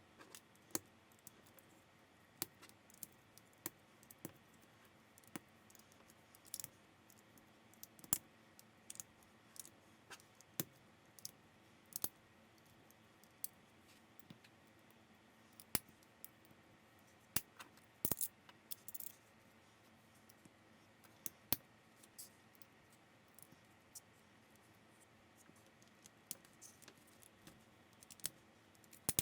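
Plastic building bricks clicking and snapping as pieces are handled and pressed together, in irregular sharp clicks with a quick flurry a little past halfway.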